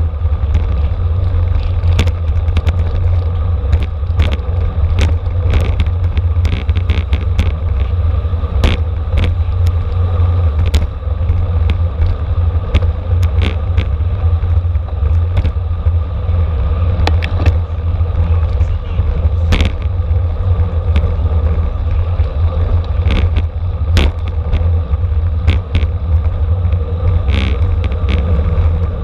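Steady low wind buffeting and road rumble from a camera riding on a racing bicycle in a criterium bunch, with frequent sharp clicks and knocks from the bike and the road.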